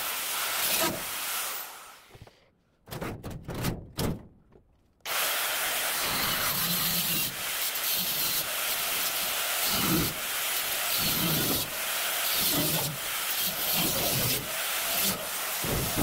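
Angle grinder cutting through the sheet-steel cabinet of a washing machine. The grinding dies away about two seconds in, leaving a few clicks, then starts again suddenly around five seconds and runs steadily.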